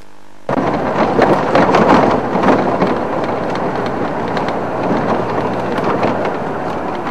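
Safari vehicle driving over rough ground off-road: a steady dense rumble with many rattles and knocks, after a brief half-second dropout at the start.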